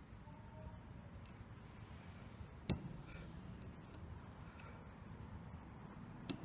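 Chip-carving cuts with a thin craft-knife blade in a small wooden block: quiet scraping of the blade through the wood, with a few light ticks, a sharp click about two and a half seconds in, and another click near the end.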